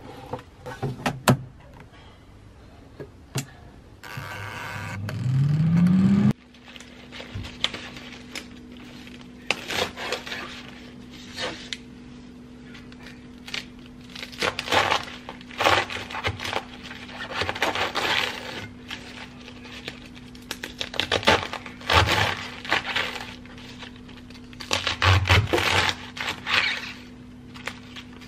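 Metal tongs clicking against an air fryer basket and a rising whine that cuts off abruptly, then a large knife slicing through a head of romaine lettuce onto a wooden cutting board: irregular crisp crunching cuts over a steady low hum.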